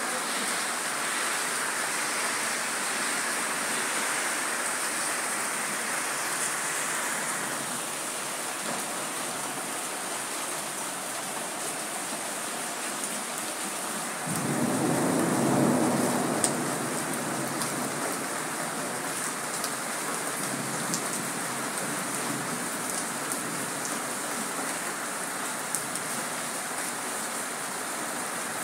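Steady rain falling, with a low rumble of thunder about halfway through that swells for two or three seconds, and a few sharp drip ticks later on.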